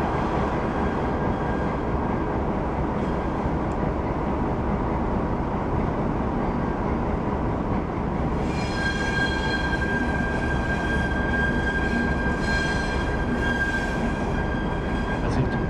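Diesel locomotive running as it approaches slowly, a steady engine rumble. About halfway through, a steady high-pitched squeal joins in and holds.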